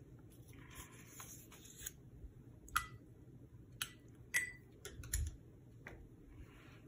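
A soft rustle of paper scraps being moved, then a handful of light, separate taps and clicks, two with a brief glassy ring, as a paintbrush is knocked against a glass water jar and lifted out.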